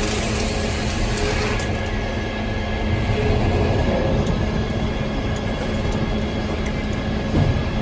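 Circular sawmill running steadily while sawing aspen into a 6x9 timber, with a harsher, noisier stretch in the first second or so.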